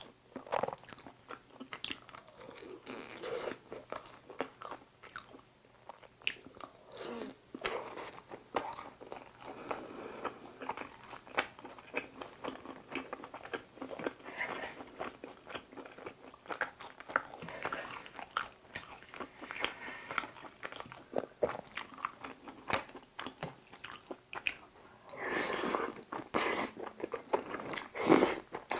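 Close-miked eating of tteokbokki: chewing fish cakes and rice cakes coated in spicy sauce, with many small mouth clicks and smacks. Near the end there are louder mouth sounds as sauce is taken off a wooden spoon.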